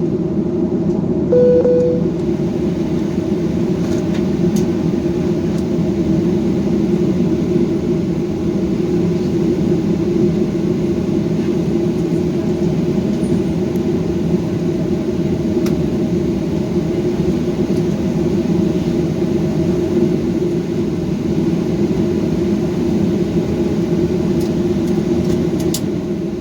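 Steady cabin noise of a jet airliner on the ground before takeoff: the engines and cabin air running as a continuous low rumble, with a brief tone about a second and a half in.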